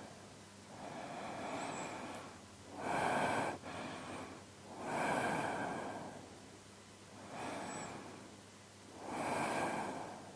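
A man's slow sleeping breaths, recorded close to a binaural microphone: a few unhurried in-and-out breaths that swell and fade, three of them louder than the others.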